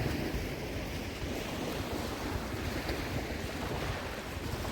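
Steady wash of small waves on the shore, with wind on the microphone.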